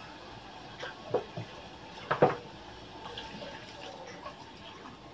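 Water poured from a plastic cup into a hot pan of frying chicken mixture, hissing and bubbling, with a few sharp knocks, the loudest about two seconds in.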